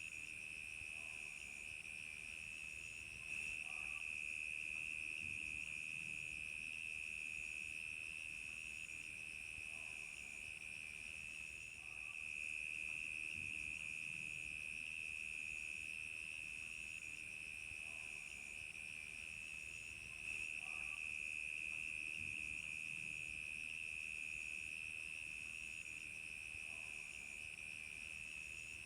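Crickets chirping in a chorus: a steady high trill with a faster, evenly repeating chirp above it.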